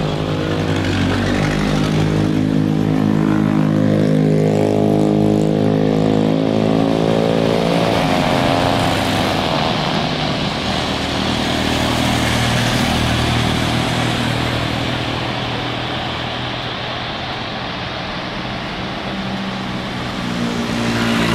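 Airbus A350-900 jet engines on final approach. Their steady droning tones give way about eight seconds in to a broad rushing roar as the airliner passes, and the roar eases off somewhat toward touchdown.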